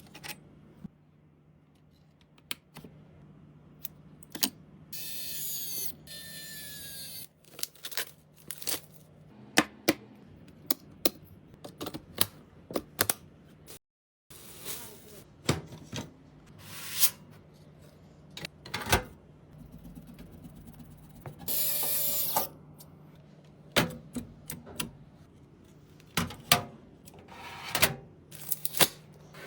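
Irregular clicks, taps and light clatter of computer parts being handled and fitted, with two brief scraping rustles, over a faint steady hum.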